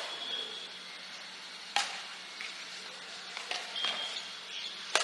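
Badminton racket strings striking a shuttlecock in a rally: sharp hits at the start, about two seconds in, a lighter pair around three and a half seconds, and another near the end, over a steady hiss.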